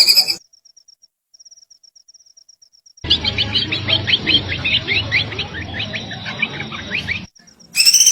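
Small songbird calling: first a faint, very fast high trill, then, about three seconds in, a rapid run of sharp downward-sliding chirps that lasts about four seconds and stops abruptly, as a recording edited in.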